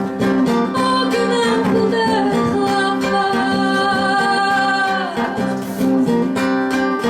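Acoustic guitar strumming steady chords in a live band, with a held melody line over it for a few seconds in the middle.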